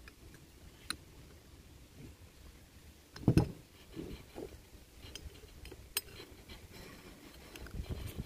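Machined metal air-rifle parts handled and fitted together: scattered light clicks and clinks of metal on metal, with one loud dull knock about three seconds in and a few softer knocks after it.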